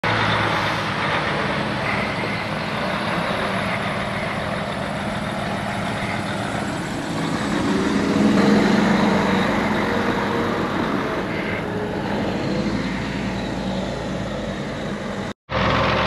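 Diesel engine of a grain dump truck idling steadily, growing louder about halfway through.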